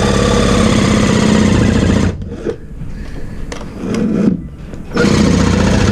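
Ryobi cordless reciprocating saw cutting through a PVC vent fitting and the fibreglass around it, its blade stroking rapidly. It runs steadily, stops about two seconds in, then starts again in two shorter runs.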